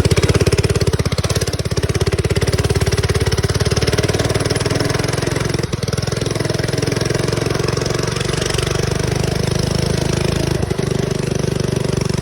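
Mini bike's small engine running steadily while the bike is ridden, its note dropping and settling about four seconds in.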